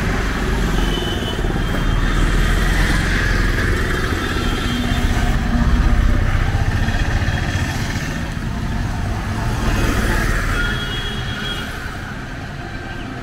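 Road traffic of motorcycles and three-wheel rickshaws passing, a steady rumble that swells as vehicles go by, loudest about six seconds in, with a few short high beeps or chirps over it.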